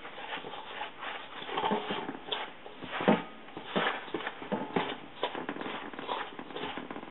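Hands kneading and squeezing crumbly whole-grain flour dough in a stainless steel mixing bowl: irregular rustling and scraping of the dough against the metal.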